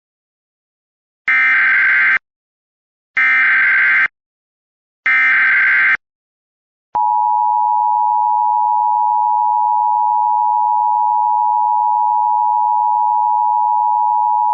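Emergency Alert System SAME header: three identical bursts of screechy digital data, each about a second long, about two seconds apart. About seven seconds in, the steady two-tone EAS attention signal begins, announcing a new alert.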